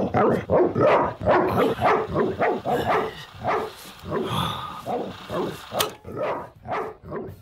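A dog barking over and over in quick, loud yaps, about three a second.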